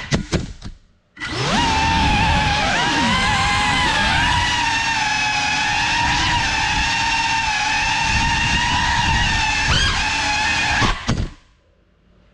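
Cinelog35 FPV cinewhoop's motors and propellers whining at a high pitch, the pitch rising and falling with throttle. The whine drops away briefly near the start and spools back up, then holds fairly steady before cutting out about eleven seconds in.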